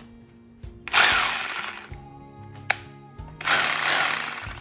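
Bossman BGBH226 900 W rotary hammer switched on twice in free air, each time running for about a second and dying away, with a sharp click between the two runs. Background music plays throughout.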